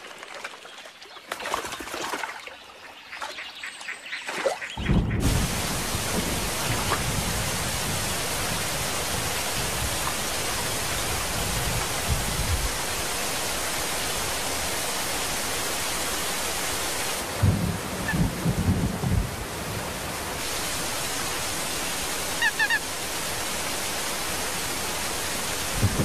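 A quieter opening, then from about five seconds in a steady rushing water noise with low rumbles now and then. A brief run of high bird calls comes near the end.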